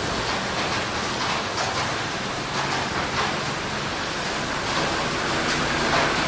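Heavy rain falling steadily, a dense even hiss with frequent brief louder splashes.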